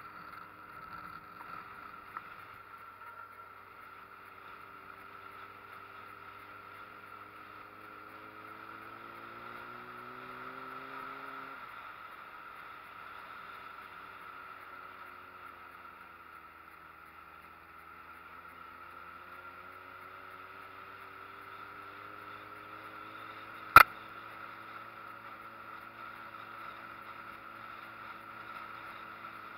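Street motorcycle engine running under way, its note climbing for a few seconds and then dropping off abruptly about eleven seconds in, before climbing again. A single sharp click stands out near the end.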